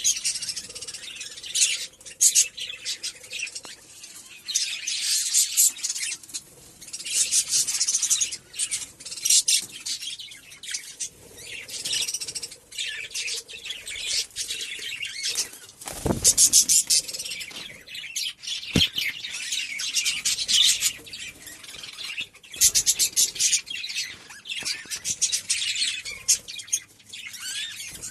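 Many budgerigars chirping and chattering in dense bursts, with two sharp knocks about two and a half seconds apart midway.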